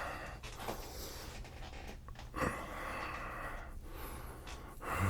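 A man breathing softly close to the microphone, with two short louder breaths or movements about a second and two and a half seconds in.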